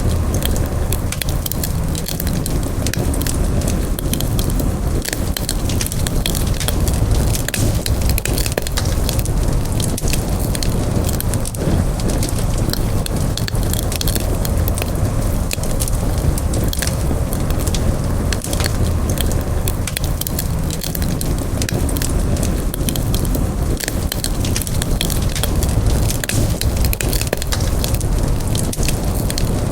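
Campfire burning, with frequent crackles and pops of burning wood over a steady low rush of flame.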